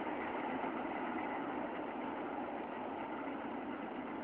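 Steady vehicle rumble with no distinct events, easing slightly in level.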